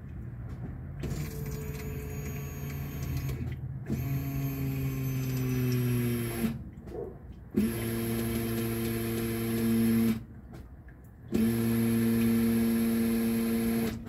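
The newly installed in-tank electric fuel pump of a Chrysler PT Cruiser hums in four short priming runs, each two to three seconds long. The second run falls in pitch as it winds down. The new pump is getting power and priming the fuel system.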